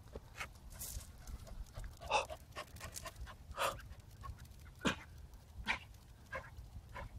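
A small dog panting in short, uneven huffs, about one a second, over a low rumble.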